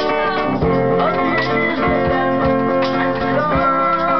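Guitar music played live, with a voice singing along.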